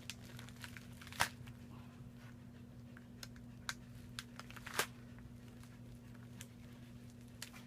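Folding knife working at a tough shipping package: scattered clicks, crinkles and small tearing sounds, with two louder snaps about a second in and near the middle.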